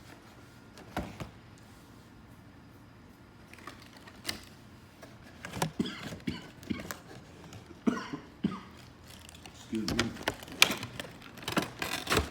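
Action figure packaging being handled: scattered clicks, taps and light knocks of plastic and cardboard as the figure is fitted back into its box.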